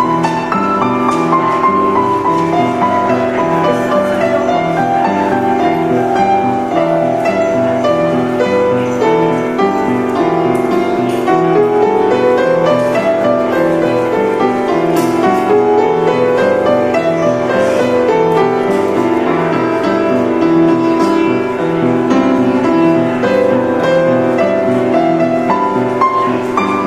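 Upright piano played with both hands in a continuous, flowing passage of chords and melody, with runs of notes that climb and fall in pitch midway.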